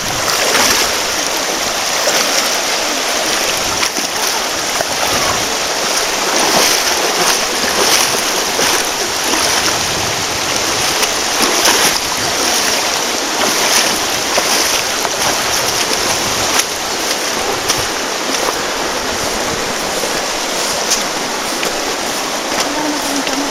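Walking stick dragged through a shallow, fast river, with irregular scrapes and splashes against the river's steady rush.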